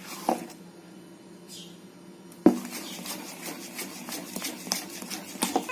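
Spoon stirring thick idli batter in a stainless steel bowl: soft scraping with light clicks of the spoon against the steel, and one sharper knock about two and a half seconds in.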